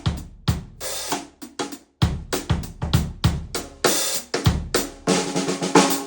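A drum kit played in a busy groove to show off a Joyful Noise 14x6.5 Knight Hawk ferromanganese steel snare drum, with kick drum and cymbals under the snare strokes. Several hits near the end ring on with a sustained pitched tone.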